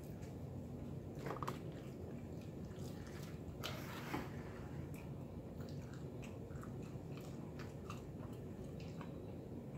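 A person chewing pizza close to the microphone, with small wet mouth clicks and smacks. A brief louder rustle about four seconds in as a piece is picked up from the cardboard pizza box.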